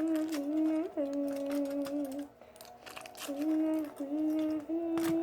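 A girl humming a slow tune in long held notes, with a pause in the middle. Short crinkling crackles come in now and then as foil is worked into slime.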